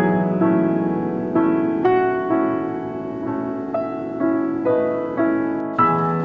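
Soft solo piano music: single notes struck about twice a second over a held low note, each ringing out and fading before the next.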